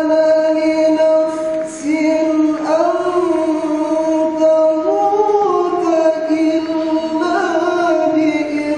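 A man reciting the Quran in melodic tilawah style, holding long notes that step up and down in pitch into a handheld microphone.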